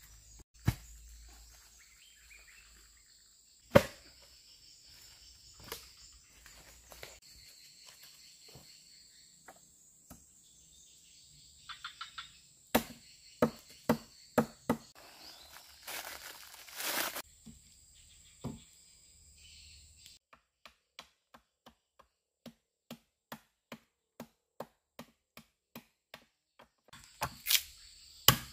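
Wood being chopped and knocked in irregular strokes, with a short rustling, tearing burst near the middle and a run of lighter, even taps about two a second in the second half. A steady high insect buzz runs under the first two-thirds and stops about twenty seconds in.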